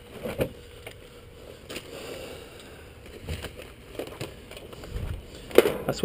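Handling noise at the metal top of a heat pump's outdoor unit: a tool bag and clipboard are moved about, with irregular rustling and scraping, a few light knocks, and a sharper knock near the end.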